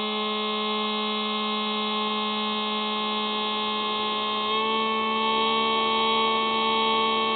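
Hubsan Spy Hawk RC plane's electric motor and propeller whining steadily, picked up by the plane's onboard camera. About four and a half seconds in, the whine steps up slightly in pitch and gets a little louder.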